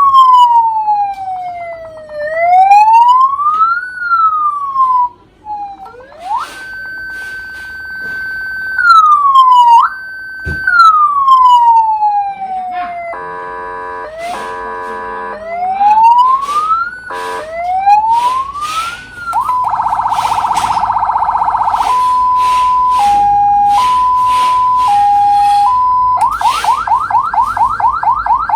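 Electronic police-escort siren module cycling through its tones: slow rising and falling wails, a held high tone that drops away, a brief horn-like blast of several notes, a fast warble, a hi-lo two-tone alternation, and a very fast yelp near the end.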